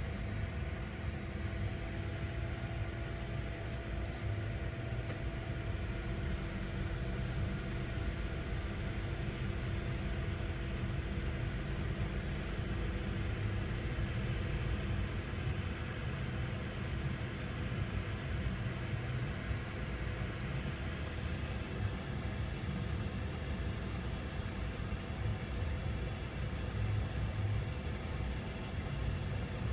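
Freight train of tank cars rolling through a road grade crossing: a steady low rumble, heard from inside a car waiting at the crossing.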